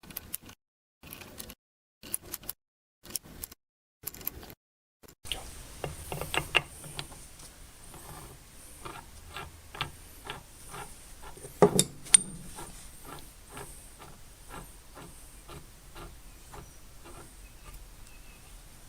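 Metal parts being worked by hand: a run of evenly spaced light metallic clicks, about two a second, with two louder knocks near the middle.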